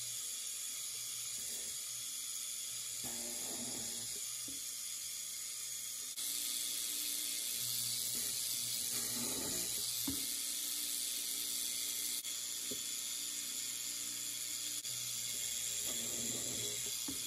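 Drilling machine running with a steady hiss and hum, its bit boring dowel holes into MDF a few times.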